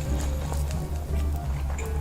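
Background music with a strong, steady bass line and light percussive clicks.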